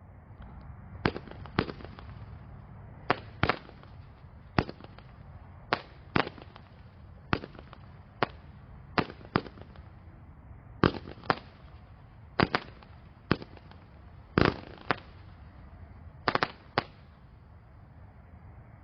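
A Criss Cross 16-shot, 200g consumer crossette cake firing. It gives about twenty sharp reports, many in close pairs, roughly one pair every second or so, and they stop near the end.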